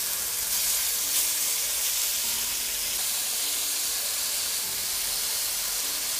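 Beef köfte patties sizzling steadily in an oiled cast iron pan as they are turned over with metal tongs.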